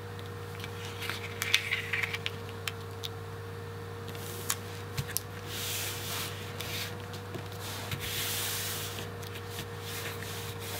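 Hands sliding and rubbing a paper border strip flat against a page on a cutting mat, with a few sharp clicks and taps in the first three seconds, then two longer stretches of paper rubbing. A steady low electrical hum runs underneath.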